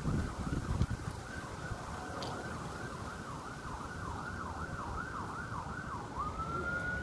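Emergency vehicle siren sounding a rapid up-and-down yelp, about three cycles a second, which switches near the end to one long rising tone.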